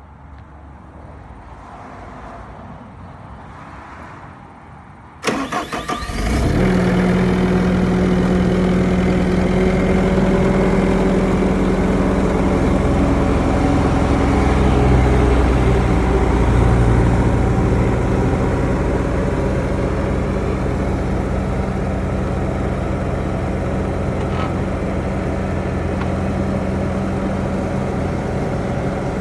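The diesel engine of a 2013 Bobcat T750 compact track loader is cranked by the starter about five seconds in and catches within a second. It then runs steadily, growing slightly louder for a few seconds in the middle before settling to a steady idle.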